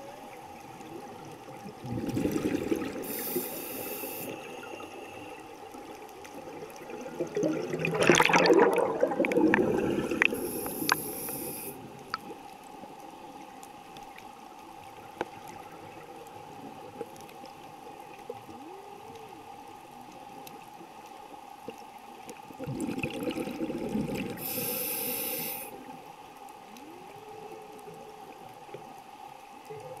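Humpback whale song heard underwater, faint arching moans that rise and fall, over a steady hum. A scuba diver's regulator breathing is louder on top: three bubbly exhalation rushes with short hisses, the loudest about eight seconds in.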